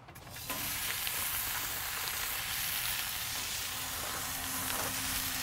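Food sizzling on a hot Little Griddle flat-top over a gas grill. The sizzle starts suddenly about half a second in, as food goes onto the griddle, and then runs on evenly.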